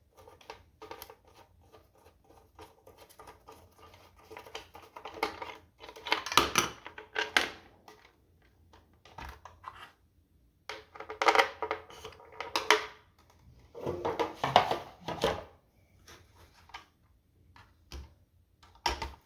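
Plastic packaging being handled, rustling and crinkling in irregular bursts, louder three times, as a 1:24 slot car is taken out of its box.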